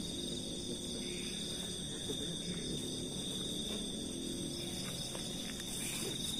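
A steady, high-pitched chorus of night insects such as crickets, over low, muffled rustling.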